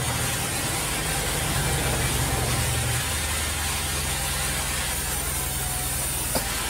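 Large sawmill band saw running: a steady low motor hum under a constant hiss from the blade and machinery. A single short sharp knock comes near the end.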